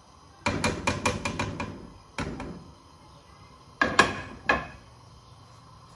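A steel plate and spatula knocking against a cooking pan as semolina is tipped and scraped into melted ghee: a quick run of clattering knocks about half a second in, one more near two seconds, then three sharper knocks around four seconds.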